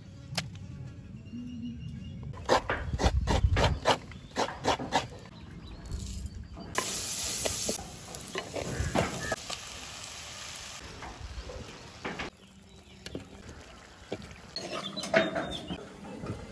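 Cooking sounds: a quick run of sharp knocks, then onions, green chillies and spices sizzling in a clay pot while a spoon stirs them, and a few more knocks near the end.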